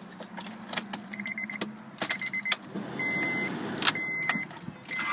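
Car keys jangling and clicking in the ignition, with the dashboard warning chime beeping. From about three seconds in, the starter cranks the 1994-96 Honda Accord's engine, which starts right up now that the main relay's solder joints have been redone.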